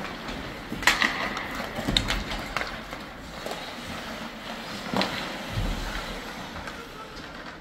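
Indoor ice hockey practice: skates scraping the ice under three sharp clacks of sticks and pucks, the loudest about a second in, the others around two and five seconds in.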